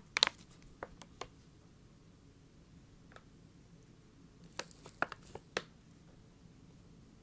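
ASMR trigger sounds made close to the microphone: scattered short, sharp clicks and taps, a handful in the first second and a half and another handful about four and a half seconds in, with a pause between.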